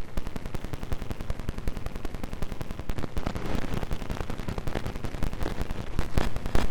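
Android alarm tone mangled by a YTPMV 'scan' edit: many stacked, sped-up and pitch-shifted copies chopped into a harsh, machine-gun-like stutter of about ten hits a second. The stutter grows louder and harsher near the end.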